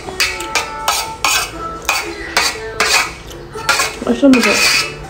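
Metal spoon scraping and clinking against a metal plate while scooping up khir, about two strokes a second.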